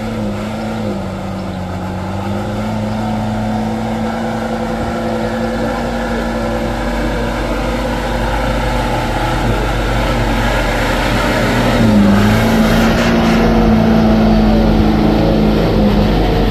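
Truck engines running close by with a steady hum that grows louder. The pitch dips briefly about a second in and again about twelve seconds in, and a short hiss follows the second dip.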